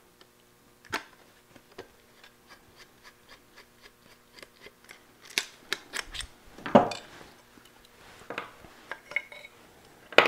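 Screwdriver backing out the screws that hold a hand plane's frog, and the frog being worked loose from the plane body: scattered small metallic clicks and scrapes, with a few louder metal clinks a little past the middle.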